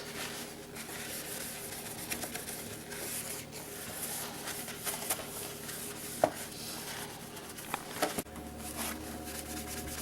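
Hand cleaning of a turntable: steady rubbing and scrubbing on its surface, with a sharp click about six seconds in. A low steady hum starts about eight seconds in.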